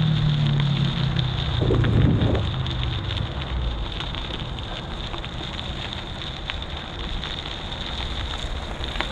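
Steady wind rushing over the microphone of a moving mountain bike. In the first few seconds a motor vehicle's engine hum passes, dropping slightly in pitch as it fades away.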